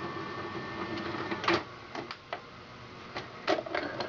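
Mechanism of a Sanyo Betacord VCR4020 Betamax VCR whirring, with a run of sharp clicks and clunks, the loudest about a second and a half in and again near three and a half seconds.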